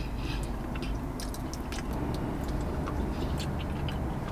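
A person chewing a mouthful of food with wet mouth noises, lip smacks and small clicks, while licking his fingers. A low steady hum runs underneath.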